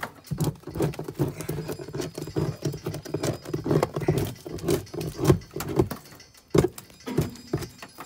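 Busy, irregular knocking and scraping of a long bar prying old honeycomb loose from the wood and brick inside an opened soffit. There is a short lull a little after six seconds in, then a sharp knock.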